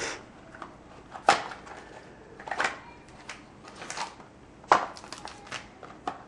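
Trading-card box and packs being handled: a series of short, sharp crinkles and taps, about a second apart.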